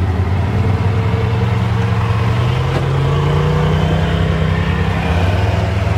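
Polaris RZR Trail S 1000 side-by-side's twin-cylinder engine running, heard from inside the open cab. Its pitch rises gradually over the first few seconds and drops back about five seconds in.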